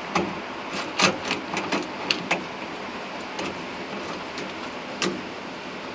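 Sharp metal clicks and knocks as a small belting-and-metal part is fitted onto the combine. They come in a quick cluster over the first couple of seconds, with one more knock about five seconds in, over a steady hiss of rain.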